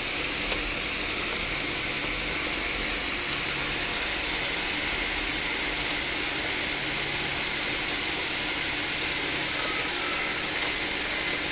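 Steady mechanical hum with hiss. In the last couple of seconds a few light clicks come from a screwdriver working the screws of the rooftop AC housing.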